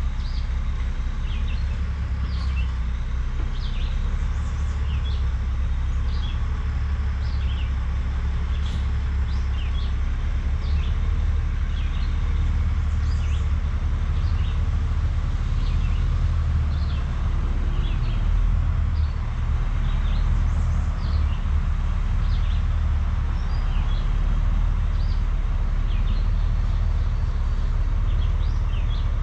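Steady low rumble of a heavy dump truck's diesel engine, with songbirds chirping repeatedly over it.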